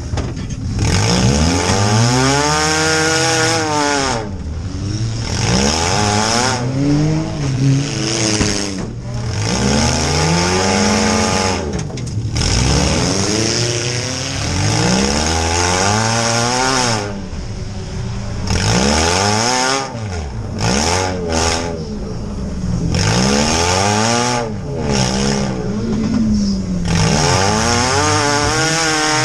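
Compact demolition derby car's engine heard from inside the stripped cabin, revving hard and falling back again and again as the car is driven around the arena.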